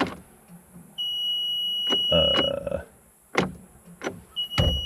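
Cab warning tone of a Cat 289D3 compact track loader: a steady high beep held about a second and a half, repeating, with a few clicks and a short rougher sound between the beeps. The machine is not starting.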